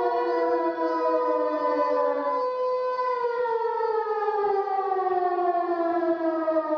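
Siren-like wailing sound effect from a video intro: several layered tones sliding slowly down in pitch, with a new descending wail coming in about two and a half seconds in.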